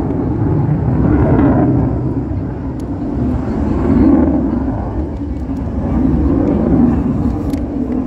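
Aircraft engine noise: a loud, continuous low rumble that swells and eases every couple of seconds.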